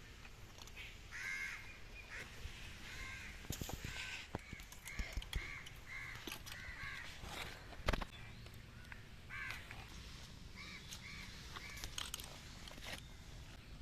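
Birds calling over and over in short, repeated calls, in runs of several, with a few sharp knocks in between, the loudest knock about eight seconds in.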